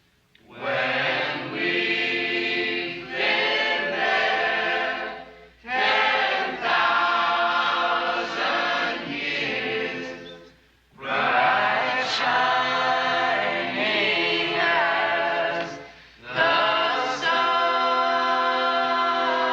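Choir singing in long phrases of about five seconds each, with short breaks between them.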